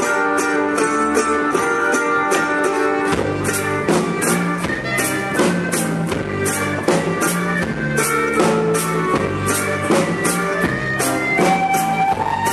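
Live folk band playing an instrumental passage: acoustic guitar, mandolin, double bass and drum kit keep a steady beat while a clarinet plays. Low bass notes come in about three seconds in.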